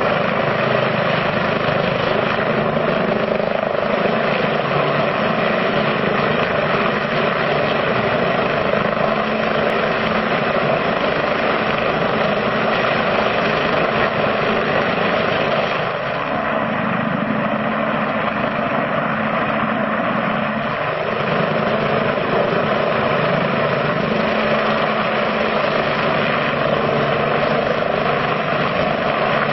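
Helicopter hovering, its rotor and engine running steadily.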